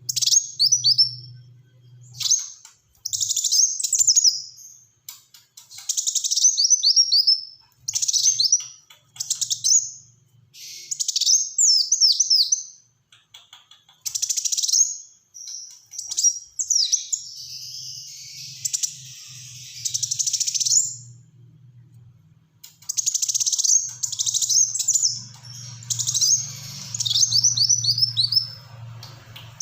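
Kolibri wulung sunbird singing vigorously in short bursts of rapid, high, falling notes, one burst every second or two, with a harsher rasping phrase near the middle. A faint low hum runs underneath.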